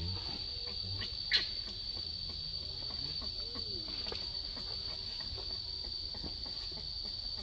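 Steady high-pitched insect drone, with scattered faint rustles and ticks of dry leaves and twigs. One brief, sharp, high squeak comes about a second and a half in.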